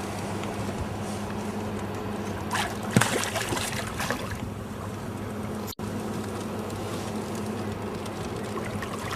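Water splashing and gurgling at the side of a small boat for about two seconds, starting a few seconds in with a sharp knock, over a steady low hum.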